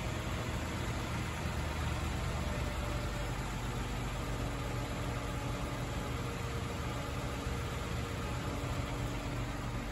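Steady low mechanical hum with an even hiss, unchanging throughout, with no distinct events.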